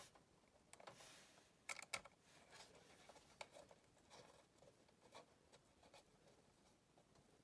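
Faint handling sounds from working on a PC: light clicks and taps, a brief rustle about a second in, and a few sharper clicks just before two seconds.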